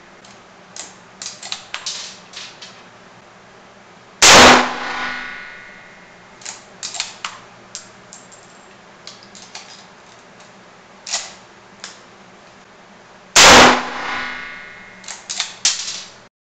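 Two rifle shots from a .303 British Lee-Enfield fitted with a muzzle brake, about nine seconds apart, each ringing and echoing for over a second in the indoor range. Between the shots come short metallic clicks and clacks as the bolt is worked and the spent case is ejected.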